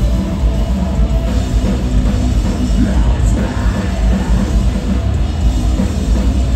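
Metalcore band playing live at full volume: heavy distorted guitars and bass, pounding drums and keyboards, with a vocalist screaming over the top.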